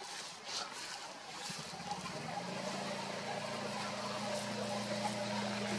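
A motor engine running steadily, a low even hum that comes in about two seconds in, over outdoor background hiss.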